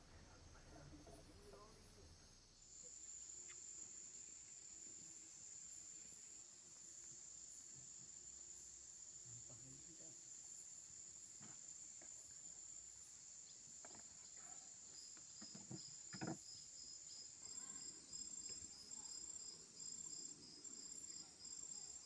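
Faint insects calling in the riverside vegetation: a steady, high-pitched buzz sets in about two seconds in, and a second, pulsing call joins it past the middle. A few light knocks sound around the middle, one louder than the rest.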